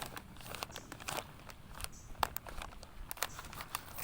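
Irregular crinkling and crackling of the plastic packaging of a field-ration flameless heater bag as it is handled, while it swells with the reaction.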